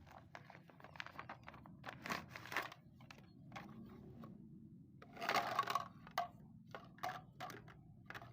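Small objects being handled: a string of light clicks and knocks with two longer scraping or rustling noises, the louder one about five seconds in.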